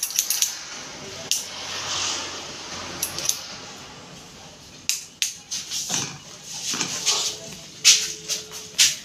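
Barber's scissors snipping and clicking at irregular intervals, with a light clatter of tools being handled.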